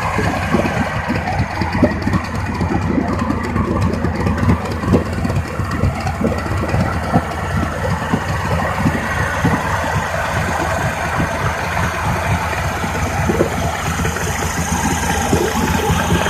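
1987 Suzuki DT55 three-cylinder two-stroke outboard motor running steadily at idle.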